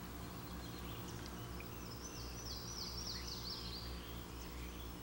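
A songbird sings a quick run of about seven repeated falling notes, starting about two seconds in, over a steady low background hum.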